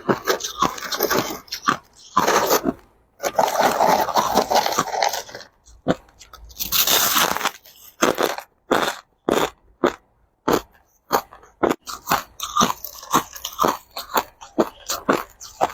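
Crushed ice being bitten and chewed close to the microphone: a run of sharp crunches, with two longer, denser spells of crunching in the first half.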